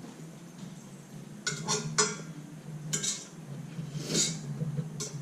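Cutlery clinking and scraping against a plate while eating, with a cluster of sharp clinks about a second and a half in and single ones around three, four and five seconds.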